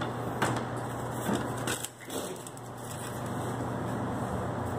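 A few brief rustles and soft knocks of handling, about once every second in the first half, over a steady low hum.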